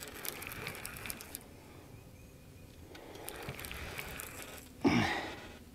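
Fishing reel being cranked against a hooked fish, its gears giving faint fine clicking. Near the end comes a short voice-like grunt that falls in pitch.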